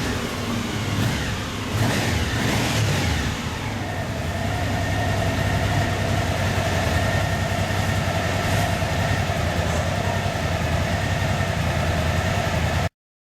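Suzuki V-Strom DL 1000's V-twin engine running with the rear wheel turning on a roller speed simulator. It holds a steady speed, with a steady whine from about four seconds in, and cuts off abruptly near the end.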